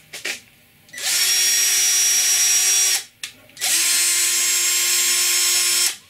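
Cordless drill driving an M4 tap into pre-drilled tap holes in a panel, run at slow speed: two steady runs of about two seconds each at an even pitch, with a short click in the pause between them.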